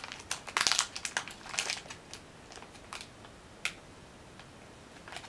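A snack packet crinkling as it is handled in the hands, in dense bursts for about the first two seconds, then only a few scattered crackles.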